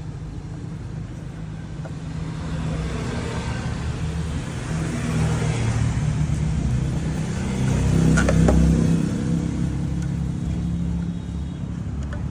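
Motor vehicle engine running steadily, growing louder to a peak about eight seconds in, then easing back.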